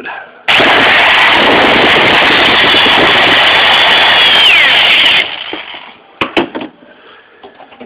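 Power drill driving a self-tapping screw into the metal side of a boat, running loud for about five seconds with its whine falling in pitch just before it stops. Two sharp clicks follow about a second later.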